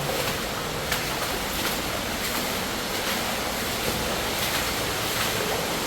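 Underground waterfall in a mine level, a steady rush of heavily flowing water.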